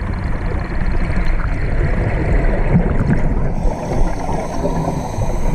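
Underwater water noise: a steady, low rumbling and gurgling.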